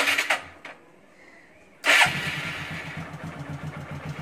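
A short burst of noise at the very start. About two seconds in, a Hero Glamour motorcycle's single-cylinder four-stroke engine starts and settles into a steady, evenly pulsing idle.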